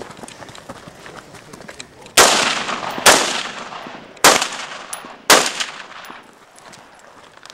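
Four rifle shots from a scoped AR-style rifle, about a second apart and starting about two seconds in, each trailing off in a long echo.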